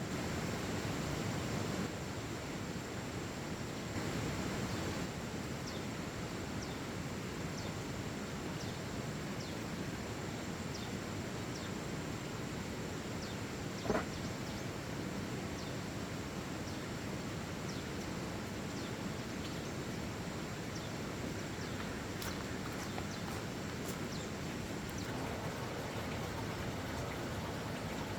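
Steady outdoor background noise with faint, short high chirps scattered throughout, and a single sharp click about halfway through.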